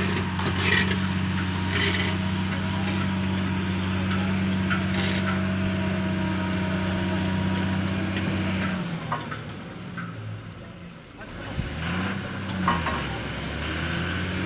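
Heavy truck's diesel engine running steadily under load as the stuck borewell drilling rig truck tries to pull out of soft ground. It eases off about nine seconds in, then revs back up near the end.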